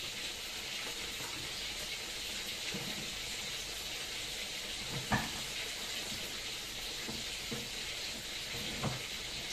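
Chayote-and-tofu broth simmering in a wok on a gas stove, a steady bubbling hiss. A sharp knock sounds about five seconds in, and a smaller one near the end.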